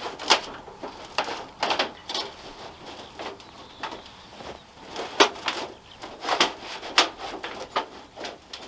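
Thin titanium chimney and its spark arrestor handled and pushed together by hand: irregular light clicks and metallic knocks, some ringing briefly.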